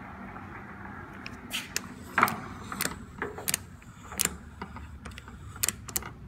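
Irregular sharp clicks and clunks of the Kingston gear head lathe's headstock speed selector being turned through its positions, over a low steady hum.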